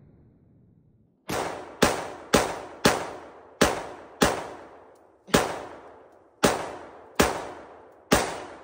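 Ten single gunshots from a semi-automatic firearm, fired one at a time at an uneven pace of roughly one every half-second to second, each trailing off in echo.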